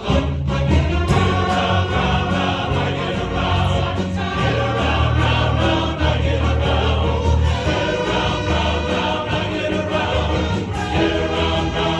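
Men's chorus singing a 1960s pop song in harmony with instrumental accompaniment.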